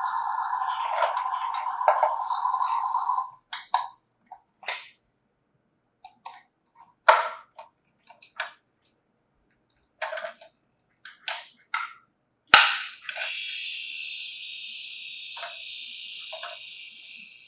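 A toy emergency vehicle's electronic sound effect with clicks, cutting off after about three seconds, then a scattering of sharp plastic clicks and taps. About twelve seconds in, a loud click sets off another steady high electronic tone that slowly fades.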